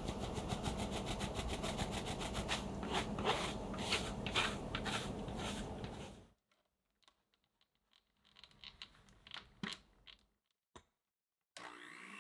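Cocoa powder being sifted through a fine metal mesh sieve: the sieve is shaken and tapped in a rapid rattling rhythm for about six seconds, then only a few faint taps follow. An electric hand mixer starts up abruptly near the end.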